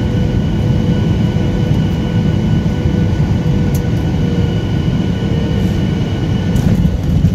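Inside an airliner cabin over the wing: the jet engines running with a steady whine over a loud low rumble as the plane rolls along the runway.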